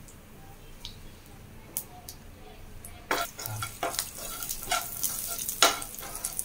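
Ground roasted spices frying in hot mustard oil in a kadhai, sizzling as a metal spoon stirs and scrapes them against the pan. About three seconds in, the sizzle and scraping grow louder and busier.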